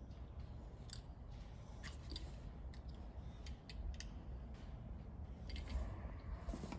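Faint, scattered snips and clicks of small hand tools trimming the stripped end of an electrical power cord.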